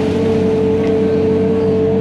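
Heavy equipment's diesel engine running steadily under work, with a strong, steady whine on top.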